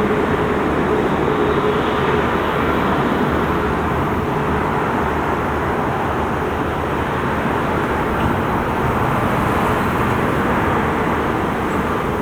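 Steady, loud rumble of jet airliner engines, easing slightly toward the end.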